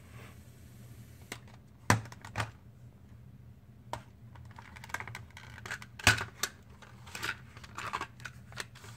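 Sharp plastic clicks and knocks from a Sony Walkman WM-FX301 cassette player being handled, its keys pressed and the case turned over, over a faint steady low hum.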